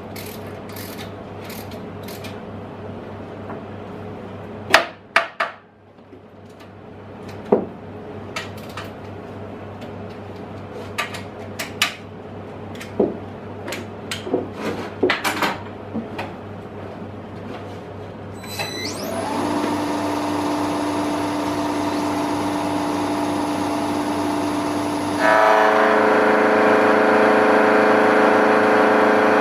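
Metal clicks and clanks of a steel billet being clamped in milling-machine vises by hand. About 18 seconds in, the vertical mill's spindle motor starts with a brief rising whine and then runs as a steady hum; about 25 seconds in, it gets louder with more steady tones as the table's power feed drives the work toward the cutter.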